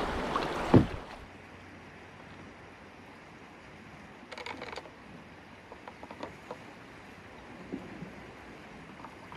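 Wind on the microphone and rushing river water from the canoe's bow camera, ending in a sharp thump just under a second in. Then a sudden drop to a quiet riverbank hiss with a short run of faint clicks about four seconds in and a few soft ticks after.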